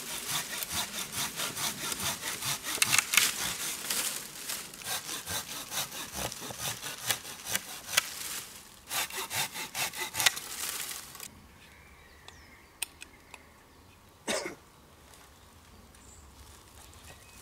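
Hand saw cutting through a dead birch branch with quick back-and-forth strokes, which stop about eleven seconds in. A single short crack follows a few seconds later.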